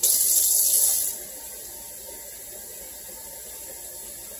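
Kitchen tap running cold water at the sink to fill an empty wine bottle; the loud hiss of the stream drops away about a second in, leaving a low steady hush.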